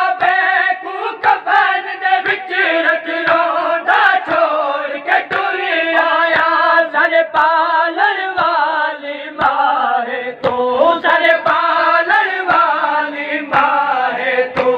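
A group of men chanting a noha, a Shia lament, together. Sharp chest-beating slaps (matam) keep a steady beat about twice a second.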